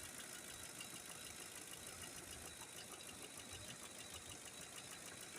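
Faint, steady idle of a Lincoln's 5.4-litre V8. A cylinder's ignition has been unplugged as a misfire test.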